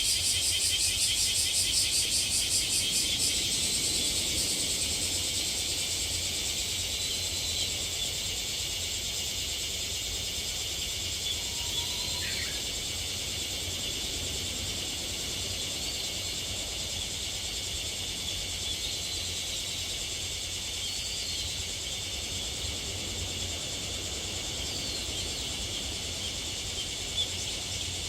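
Cicadas singing in a dense, steady high-pitched chorus, with a fast pulsing song loudest in the first three seconds. Faint, short bird calls come through the chorus now and then.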